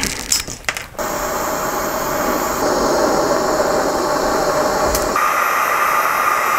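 A few short handling clicks as insulation is cut from the wire, then from about a second in a handheld blowtorch flame hissing steadily as it heats an Anderson terminal for soldering. About five seconds in the sound changes to the steady blowing of a heat gun shrinking tubing onto the wire, with a higher whine in it.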